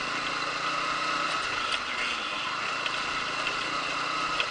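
A small vehicle engine running steadily while the vehicle is under way along a rough dirt track.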